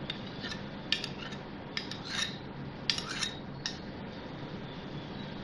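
Metal spoon clinking irregularly against a small glass bowl while beating an egg. The clinks come in a scattered run of about eight over the first three and a half seconds, then die away.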